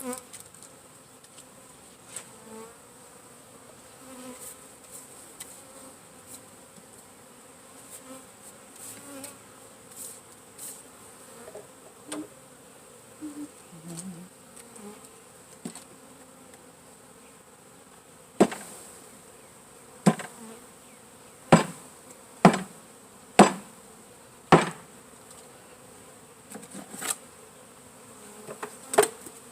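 Honey bees buzzing around the hive, a steady hum. In the second half, several loud, sharp knocks come in quick succession, with two more near the end.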